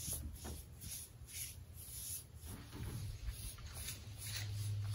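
Paintbrush strokes applying stain to a peeled-log handrail post: soft swishes of bristles on wood, a few a second and uneven, over a low steady hum.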